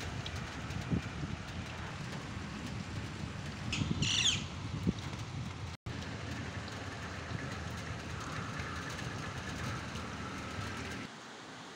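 Steady wind and rain hiss, with wind buffeting the microphone. A bird calls once, briefly, about four seconds in.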